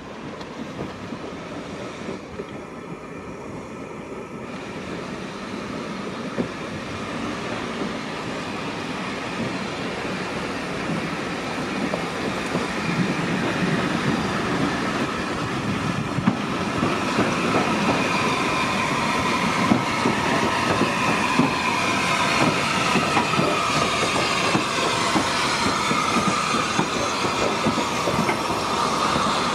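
Welsh Highland Railway narrow gauge steam train, headed by Garratt NG.87, approaching and passing close by, growing steadily louder. Its coach wheels click and rumble over the track, and from about halfway through the wheels squeal in a high, slowly falling pitch.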